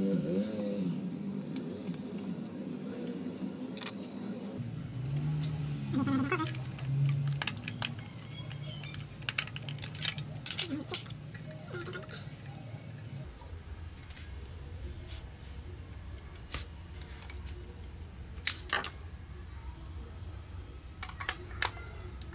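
Scattered sharp clicks and light metallic clinks of small hardware being handled during electrical outlet wiring, over a low steady hum.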